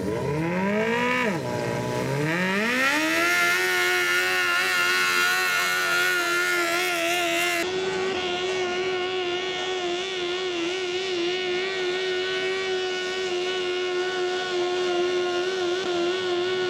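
A garden modified pulling tractor's engine revving up as it takes off with the sled. The pitch climbs, dips briefly about a second in, climbs again, and then holds at high, steady revs under load while it drags the sled down the track.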